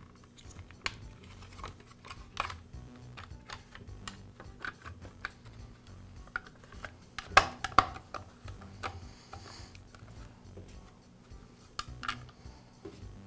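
Hard plastic engine cover of an Echo string trimmer being fitted and pressed onto the engine: scattered clicks and taps of plastic on plastic, loudest a pair of sharp clacks about seven and a half seconds in.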